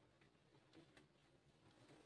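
Near silence: room tone, with a faint click about halfway through.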